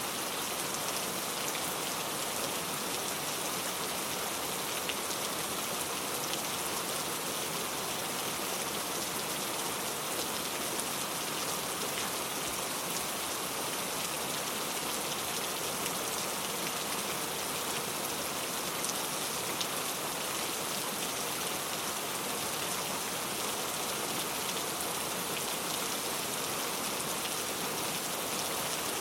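Steady rain falling on a surface, a continuous hiss with many fine drop patters, unchanging throughout.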